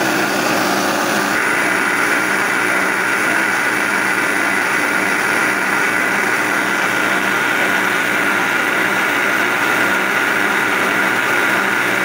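Electric countertop blender running steadily at speed, beating eggs, oil and sugar into cake batter, with a steady motor whine.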